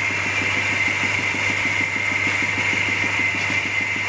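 Small engine idling steadily with an even, fast beat, and a constant high-pitched tone over it.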